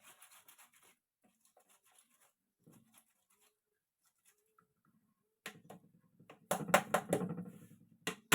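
Kitchen work: faint handling sounds, then from about five and a half seconds in a rapid run of loud knocks and clatter of utensils and dishes, loudest near the end.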